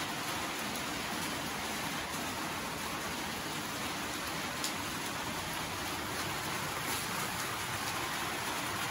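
Steady rain falling on wet ground, an even hiss.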